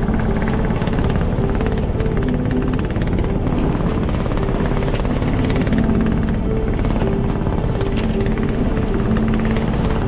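Background music with short held notes over a steady, fast-pulsing rumble.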